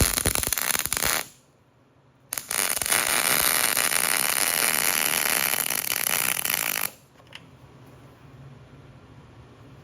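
Electric arc welding a steel PTO yoke: the arc crackles and hisses in a short run ending about a second in, then a longer steady bead of about four and a half seconds that cuts off abruptly.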